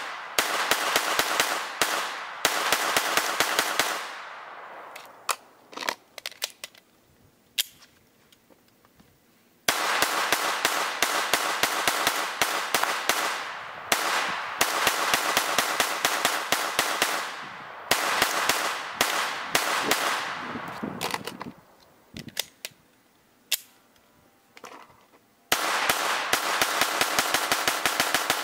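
AR-15 rifle with a Bear Creek Arsenal Andean Bear upper and lightweight bolt carrier group firing 68-grain rounds in rapid strings of several shots a second, each shot echoing into the next. Firing stops twice for a few seconds, with only a few single sharp reports in the gaps, then resumes. This is back-to-back shooting for a stress test of the uncleaned bolt carrier group.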